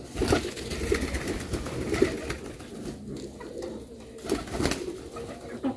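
Domestic birds calling with low cooing sounds, mixed with several knocks and a louder clatter about four seconds in.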